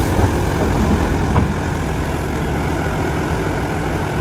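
Excavator's diesel engine idling steadily with a low, heavy rumble.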